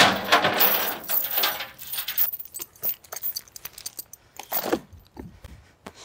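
Steel chain and rigging on a log-loading arch rattling and clanking, starting with a sudden loud clatter that jingles on for a couple of seconds, then scattered clicks and another short rattle near the end.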